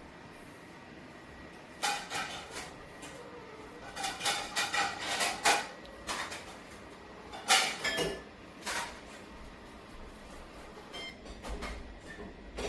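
Robot vacuum cleaner at work: a faint steady hum and whine under irregular clusters of knocks, clicks and rattles.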